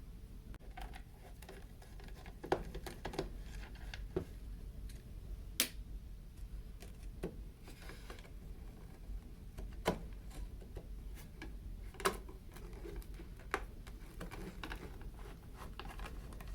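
Handling noise from unpacking a replacement trimmer gear spindle: a few sharp, isolated clicks and light taps of plastic and metal parts, over a faint low hum.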